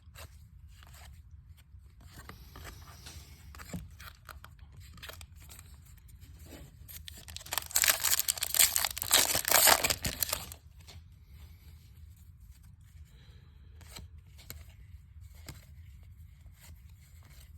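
Foil wrapper of a baseball card pack torn open by hand: a loud rough ripping and crinkling for about three seconds starting about seven seconds in, amid quiet rustling and light clicks of cards being handled.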